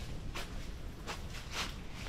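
Footsteps, about two a second, over a steady low rumble.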